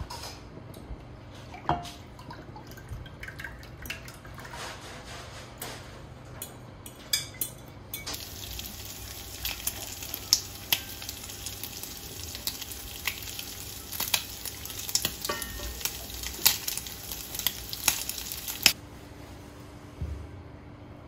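Spoon clinking and scraping against a glass mixing bowl while an egg-and-milk mixture is poured out into a glass baking dish. About eight seconds in, a steady hiss starts under more frequent clinks and stops abruptly near the end.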